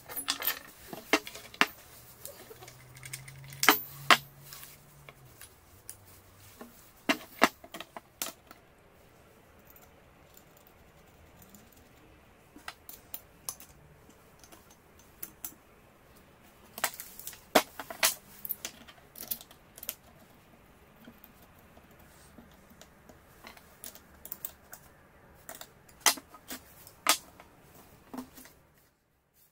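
Irregular clinks and clicks of steel parts and a wrench being handled and tightened against the head of an angle grinder while a steel bracket is fitted to it.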